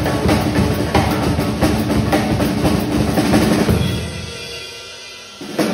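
Drum kit played fast: a dense drum roll of rapid strokes that stops about four seconds in, leaving a fading ring. One more sharp hit comes near the end.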